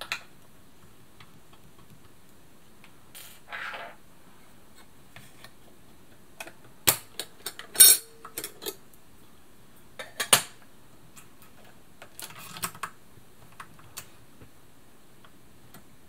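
Small metal parts of an Elna Lotus sewing machine being taken off by hand: scattered metallic clicks and clinks as the presser foot, needle and steel needle plate come off. The loudest clicks come in a cluster about halfway through and another a couple of seconds later, with a short scrape or two.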